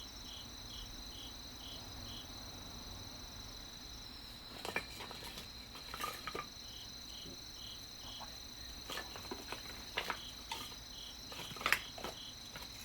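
Crickets and other insects trilling steadily, with a pulsing chirp of about four beats a second that stops and starts. From about four seconds in come irregular sharp crackles and snaps from kindling just catching fire in the fire pit.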